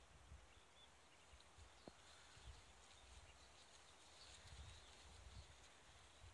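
Near silence: faint outdoor ambience with a light low rumble of wind on the microphone and a few faint bird chirps.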